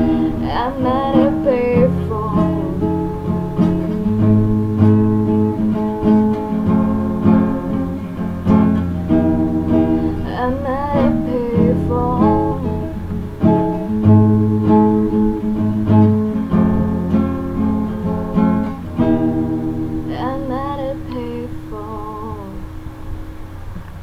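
Acoustic guitar strumming the chords of the song's outro, with a voice singing short wordless phrases three times. It grows quieter over the last few seconds.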